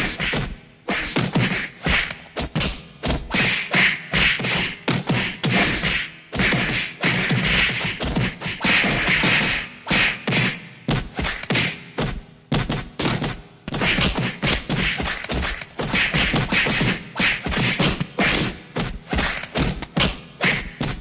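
A rapid, unbroken string of 90s-style fight sound effects: punches and body hits landing several times a second.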